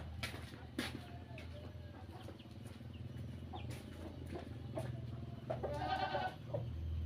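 A goat bleats once, a single call of about a second, over a low steady rumble and a few scattered clicks.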